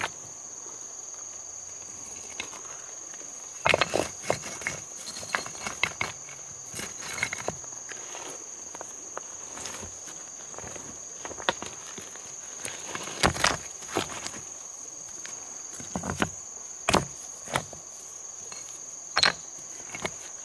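Insects chirping outdoors in one steady high tone, with scattered knocks and rustles from someone moving about close by.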